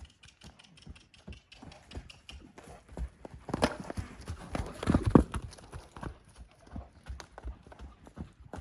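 Horse's hooves striking the ground as it moves, a run of uneven knocks that grow loudest between about three and a half and five and a half seconds in.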